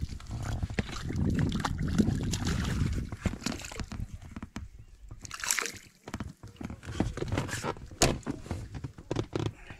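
Water sloshing and splashing beside the boat as a hooked perch thrashes at the surface and is lifted aboard, with scattered clicks and knocks of handling; a sharp knock near the end is the loudest sound.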